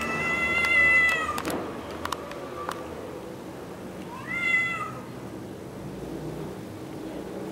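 Tomcat meowing in a territorial standoff: one long drawn-out call lasting about a second and a half, then a shorter call that rises and falls about four seconds in.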